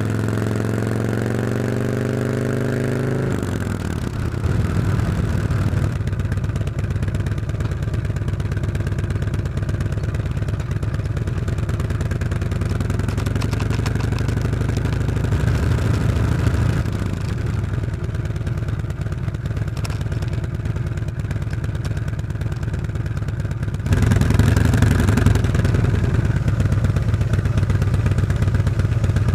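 Exhaust of a 2012 Harley-Davidson Road King's V-twin, heard through stock mufflers fed by stainless 2-1-2 head pipes, with a stage 1 air kit and a tuner. The engine runs steadily with a change in pitch about three seconds in, and gets suddenly louder with more throttle near the end.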